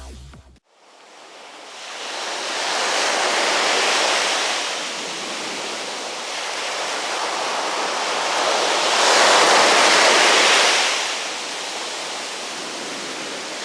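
Surf washing onto a beach, swelling twice as waves break, around four seconds in and again around ten seconds in.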